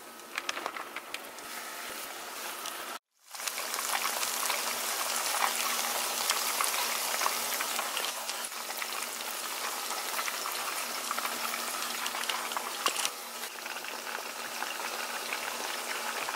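Catfish pieces coated in Frank's hot sauce and flour deep-frying in hot oil: a dense, steady sizzle full of small crackles and pops. It is quieter for the first few seconds, breaks off briefly about three seconds in, and comes back louder.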